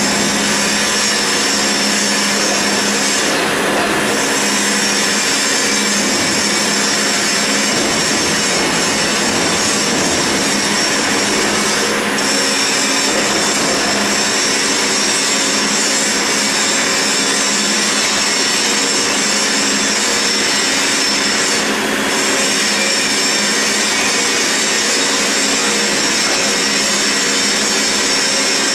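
CNC roll-turning lathe machining grooves into a steel roll: a steady, loud machine whir and hum with a dense high hiss from the cut. The hiss briefly thins three times.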